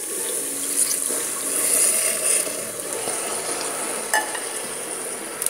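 Hot melted-sugar caramel sizzling and spitting hard in a pot after water is poured into it, while a wooden spoon stirs it. There is one sharp click about four seconds in.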